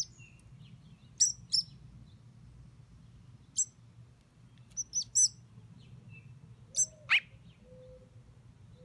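Fledgling American robin giving short, sharp, high chirps, about eight of them at irregular intervals, some in quick pairs.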